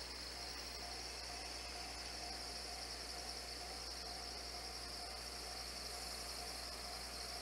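Faint, steady insect chirring, a high shimmering drone that does not let up. A faint steady hum lies underneath, and a thin, faint tone joins about half a second in.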